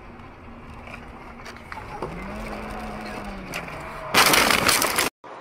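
Low steady road noise from a car driving on a snowy highway, then about four seconds in a loud, harsh crash noise lasting about a second that cuts off abruptly.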